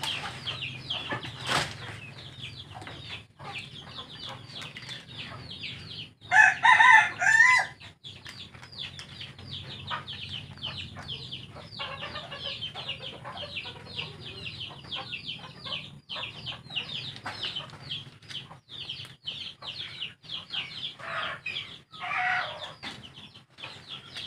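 Chickens: a steady stream of short, high, descending peeps, with a loud rooster crow lasting about a second and a half some six seconds in.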